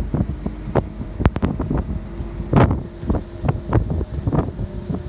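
Wind buffeting the microphone in uneven gusts on the open top deck of a moving Scania N230UD double-decker bus, with a faint steady hum from the bus running beneath. There are a few sharp clicks about a second in.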